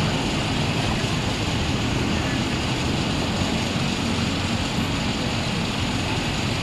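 Coach bus diesel engine running low and steady as the bus creeps forward at walking pace.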